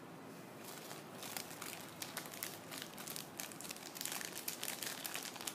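Small packaging crinkling as it is handled, a dense run of crackles starting about a second in.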